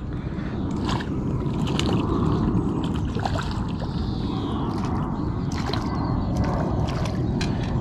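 Water sloshing and splashing as a small tench is drawn into a landing net at the pond's surface, with scattered sharp clicks over a steady low rumble.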